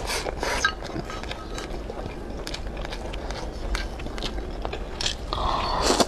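Close-miked chewing of a mouthful of laba garlic (vinegar-pickled garlic) and rice, a run of small clicks and crunches. Near the end a longer scraping sound as chopsticks take more food from the bowl.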